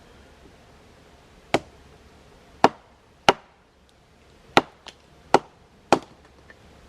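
Firewood being chopped with a blade: six sharp, irregularly spaced strikes about a second apart, with a couple of lighter knocks between them.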